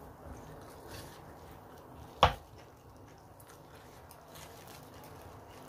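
Quiet cutlery sounds as a spoon and fork work at a fried chicken piece on a plastic-covered plate, with one sharp click about two seconds in.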